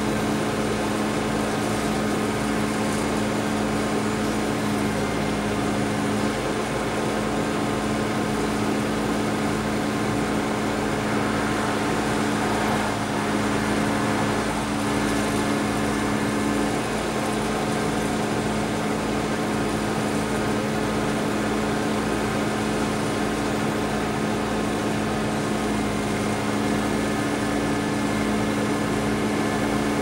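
Work-truck engine idling steadily: a constant mechanical hum with a few steady tones, one of which drops out for a moment a little past the middle.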